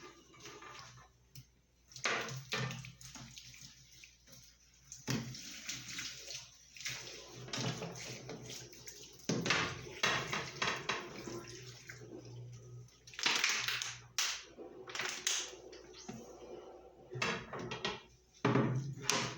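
Water running and splashing in irregular bursts, turned on and off or moved about, with some handling clatter.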